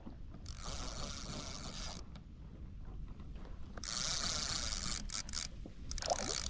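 Spinning reel being cranked in two spells, its gears whirring, as a hooked fish is wound in.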